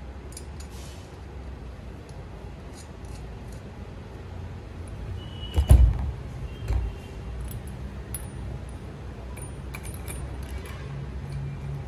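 Metal parts of a Grand Pitstop paddock stand clinking and tapping as it is put together, with a heavier knock a little before the middle and a lighter one about a second later.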